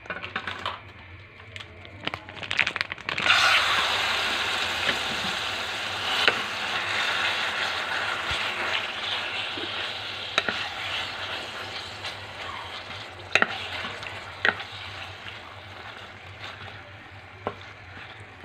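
Marinated beef tapa frying in hot oil in a stainless steel pan. A few knocks come first, then about three seconds in a loud sizzle starts as the meat goes in and slowly dies down, with occasional knocks of a wooden spatula against the pan.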